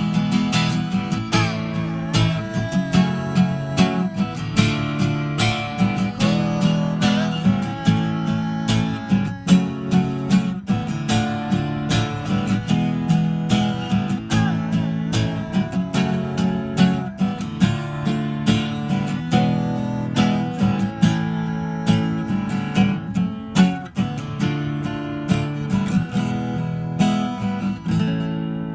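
Acoustic guitar music with strummed chords in a steady rhythm.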